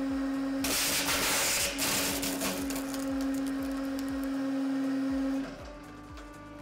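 Hydraulic press running with a loud steady hum as its ram forces wax candles through a perforated steel die. About a second in there is a burst of crunching noise lasting about a second, with scattered crackles after it, as the wax gives way. The hum cuts off sharply near the end.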